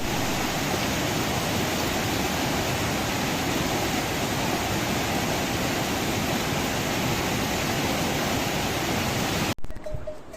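Steady, dense rush of falling or running water, cut in abruptly and cut off suddenly about nine and a half seconds in.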